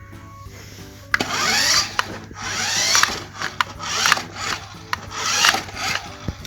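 A toy RC car driving in repeated short runs: its small electric motor whirs, rising and falling in pitch, and its tyres scrub over the floor, with a few clicks. Background music plays underneath.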